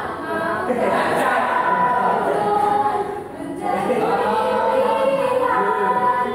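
A song sung by a group of voices, holding long sustained notes, with a brief dip about three seconds in.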